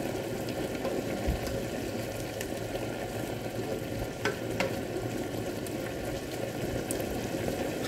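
String beans and tofu cooking in broth in a Hanabishi electric multi-cooker pot, stirred with a spatula: a steady bubbling sizzle with the spatula scraping through the food and tapping lightly against the pot a few times.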